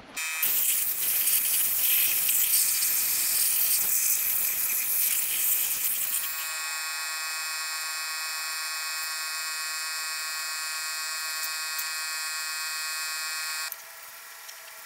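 Aerosol spray-paint can spraying black paint onto a steel suspension subframe: a strong steady hiss. After about six seconds the hiss gives way to a steady high buzzing tone, which stops suddenly near the end.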